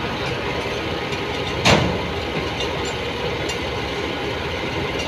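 Ford farm tractor engine running steadily, with one loud, sharp thump about a second and a half in.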